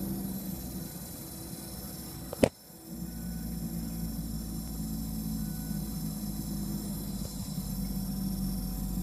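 A 2012 Mini Countryman S with its engine shut off, making a steady hissing and humming. A sharp click comes about two and a half seconds in, then the sound drops briefly and comes back.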